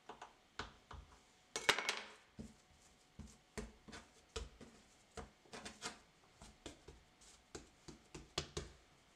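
Hands working a ball of yeast dough on a wooden tabletop, cutting it in two with a knife and then rounding the halves. Irregular soft knocks and taps of the dough and hands against the wood, about one or two a second, the loudest cluster about two seconds in.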